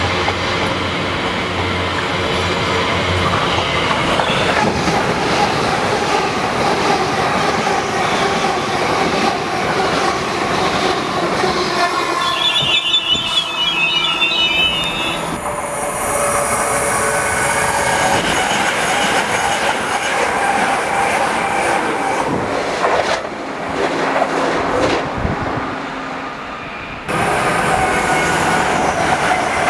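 Electric passenger trains running through a station: steady wheel-on-rail noise with clickety-clack, across several passes joined by abrupt cuts. A high-pitched wheel squeal lasts a few seconds near the middle.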